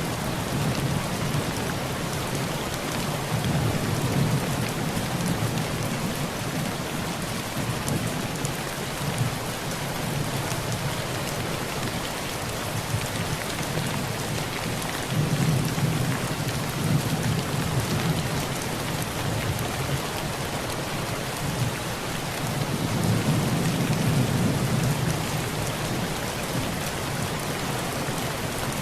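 Heavy rain falling steadily on a tin roof, with low thunder rumbling in three swells: a few seconds in, about halfway, and near the end.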